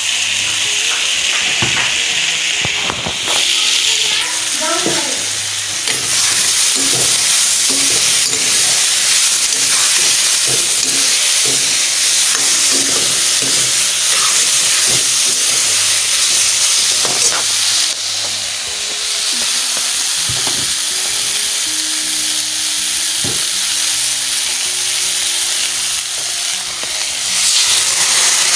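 Food frying and sizzling in hot oil in a pan, with a spoon repeatedly scraping and knocking against the pan as it is stirred.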